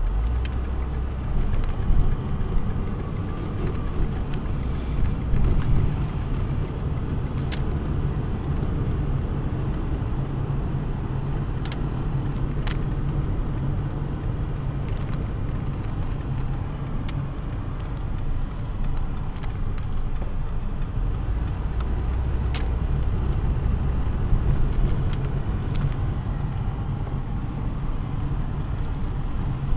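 Car driving, heard from inside the cabin: a steady low rumble of engine and tyres on the road, with a few short ticks scattered through.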